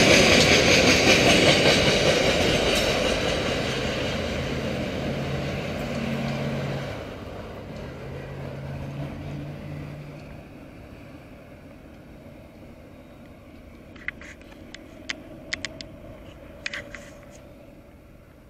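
Coal train's hopper wagons rolling past on the rails, the wheel and rail noise fading steadily as the train draws away. A low steady hum comes through about halfway, and a few sharp clicks sound near the end.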